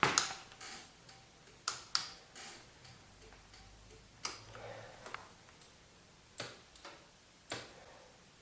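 Kawasaki KLR650 turn-signal flasher relay clicking as the new signals blink: a series of short, sharp clicks, some in close pairs.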